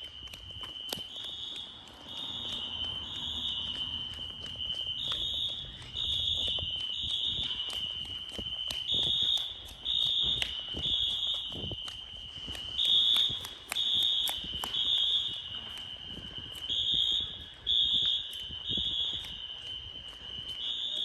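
Apartment building fire alarm horns sounding during a building-wide alarm test, in the temporal-three evacuation pattern: three high beeps, a pause, then three more, repeating. A second steady high tone runs underneath, with scattered faint clicks and knocks.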